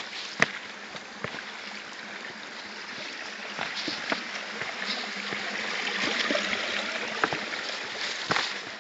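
A small stream of water running and trickling over rocks, growing louder towards the middle and then easing, with a few footsteps knocking on the stones.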